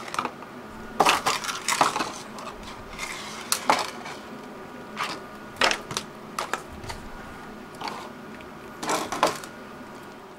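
Cardboard boxes and clear plastic packaging being handled and set down on a tabletop: scattered short clicks, taps and knocks, a few of them sharper.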